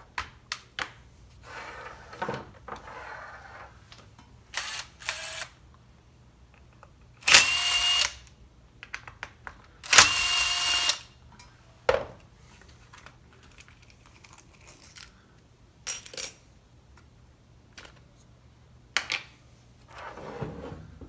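Hands taking apart a chainsaw on the bench: scattered clicks and rattles of small plastic and metal parts. About seven and ten seconds in come two loud bursts of a tool, each about a second long, a hiss with a steady high whine in it.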